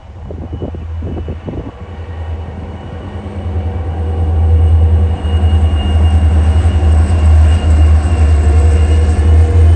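Freight train approaching and passing: its diesel locomotive's low rumble grows louder over the first four seconds, then stays loud and steady. A few light knocks come early on.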